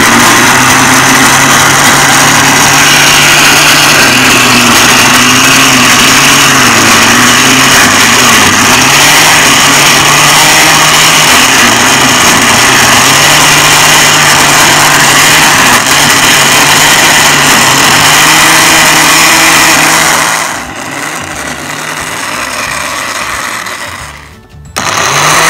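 Electric mixer grinder (mixie) running at full power, grinding torn parathas, roasted nuts, coconut, ghee and sugar into dry churma: a loud rushing whir with a wavering motor hum. About 20 seconds in it drops sharply to a quieter run for a few seconds, then stops.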